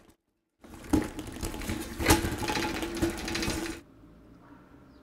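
Small tracked robot's electric drive motors whirring with a steady tone while its tracks rattle and clatter over a concrete pipe floor. The sound starts abruptly under a second in and drops away near the end.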